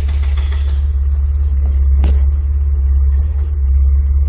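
HWX68 silenced box-type hydraulic breaker on a small excavator hammering rock with rapid blows, over a loud, low, steady drone. The sharp clatter thins out about a second in, and a single sharp knock comes about two seconds in.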